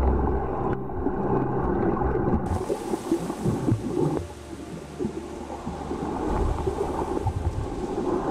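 Water noise recorded by a camera held underwater: a muffled, crackling and gurgling wash, growing hissier about two and a half seconds in and dipping quieter for a moment around the middle.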